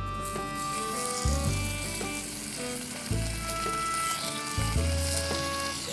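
Bacon slices sizzling as they go into a hot, thin 16 cm stainless steel camp frying pan, the sizzle starting just after the start and flaring again near the end as another slice goes in.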